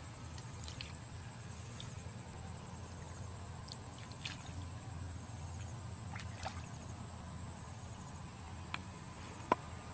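Light sloshing and squelching as feet and hands move through shallow muddy water, with scattered small ticks and one sharp click near the end.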